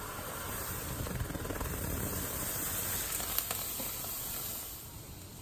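A pan of full-cream milk and water on the stove coming to the boil, a steady hissing sizzle that swells and then eases near the end as the milk starts to foam up. There is one faint click about three and a half seconds in.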